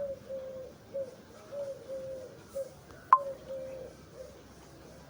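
A bird cooing in a repeating phrase of low coos, a short note then a longer one, about once a second. One sharp click about three seconds in.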